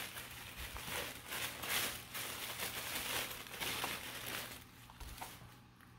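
Tissue paper rustling and crinkling as it is handled and pulled open, dying down after about four and a half seconds.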